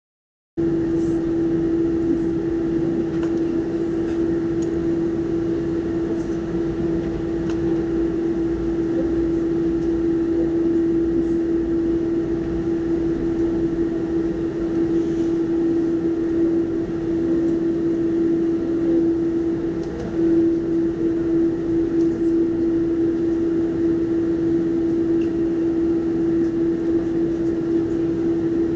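Cabin noise inside a Boeing 747-400 taxiing with its engines at idle: a steady hum with one strong held tone, starting abruptly just under a second in.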